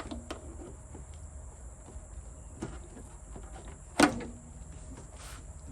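A sharp knock about four seconds in, with a softer click before it, over a steady low rumble of highway traffic.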